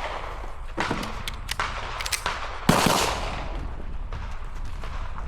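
Pistol shots fired in quick succession on a timed stage, about half a dozen in the first three seconds, with the loudest shot near the middle. Each is followed by a short echo, and the firing stops after about three seconds.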